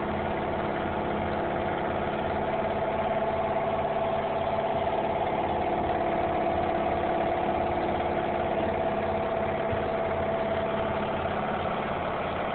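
A motor running steadily, a constant drone that holds the same pitch and level throughout.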